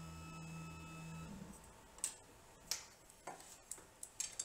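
The router table's motorized bit lift running with a steady hum as it lowers the router bit, stopping about a second in. Then a few light clicks and taps from objects being handled on the table.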